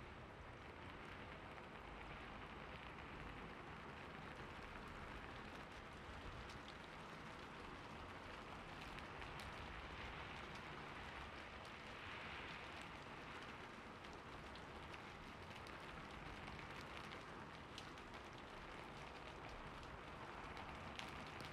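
Faint, steady water ambience: a fountain's water splashing and pattering, with scattered small drips.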